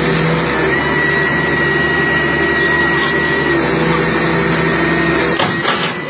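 Excavator engine and hydraulics running steadily, with a held high whine that breaks off and comes back; the engine sound falls away shortly before the end.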